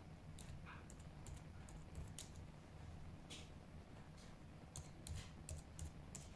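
Typing on a computer keyboard: faint, irregular key clicks in short runs.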